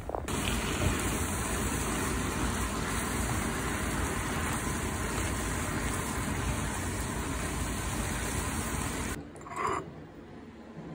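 Thin slices of beef skirt (anchangsal) sizzling in a frying pan, a steady hiss that cuts off about nine seconds in. It is followed by quieter room tone and one short sound.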